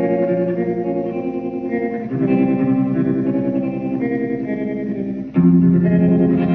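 Instrumental break in a slow song: guitar playing sustained chords with no singing, changing chord about two seconds in and again near the end, where it gets louder.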